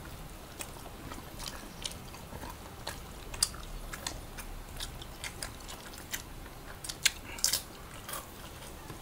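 Close-up eating sounds of two people chewing chicken adobo and rice: irregular wet smacks and clicks of mouths and lips. The loudest come about seven seconds in.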